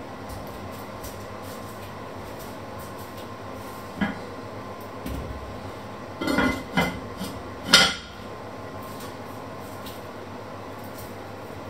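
Kitchenware being handled on the counter: a light knock about four seconds in, a quick run of clinks and knocks a couple of seconds later, and one loud knock near eight seconds, over a steady low background hum.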